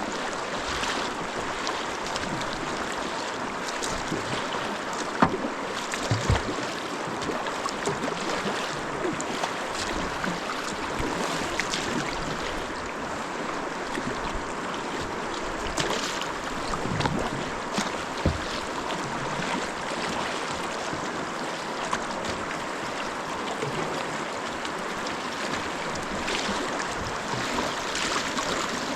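Moving river water rushing steadily past the kayaks, with a few short sharp clicks, the loudest about five seconds in.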